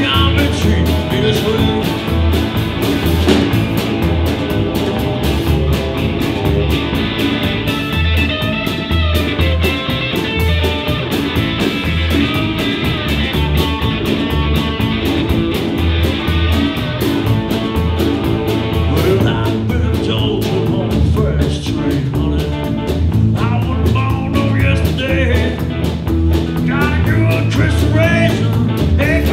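Live band of electric guitar, upright bass and Tama drum kit playing an upbeat rock-and-roll/country number. The middle is an instrumental stretch led by the electric guitar over a walking bass and steady drums, and a singing voice comes back in over the band in the last part.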